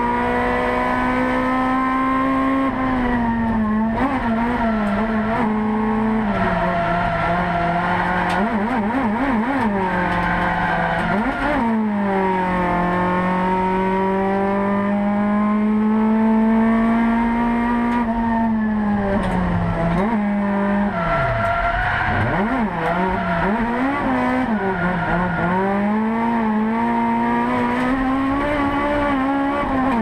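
Toyota AE86 drift car's engine, heard from inside the cabin, revving hard through a drift lap. The pitch holds high, drops away and climbs again with the throttle, with quick flutters of revs about a third of the way in and again after two-thirds.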